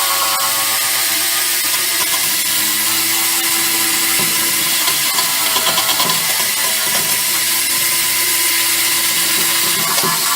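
Power tool steadily abrading the steel bodywork of a 1987 Classic Mini, stripping paint and rust back to bare metal; a dense, loud hiss with a motor whine underneath.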